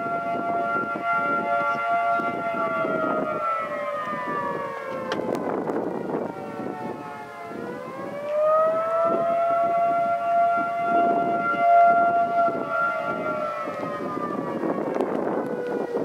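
Federal Signal 2T22 outdoor warning siren sounding a two-tone chord in attack mode: it holds, winds down in pitch, rises again about halfway through, holds, and starts winding down once more near the end. Gusts of wind hit the microphone throughout.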